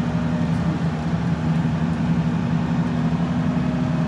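Mack Granite dump truck's diesel engine running steadily as the loaded truck pulls away up a steep grade in a low gear, with an even drone and no revving.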